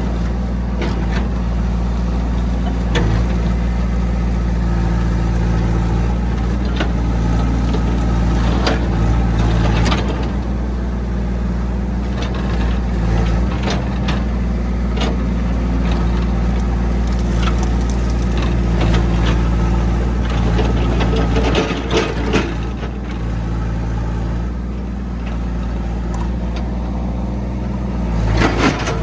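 Hitachi EX60 excavator's diesel engine running steadily under hydraulic load, with scattered knocks and scrapes from the bucket working. The engine note shifts about two-thirds of the way through.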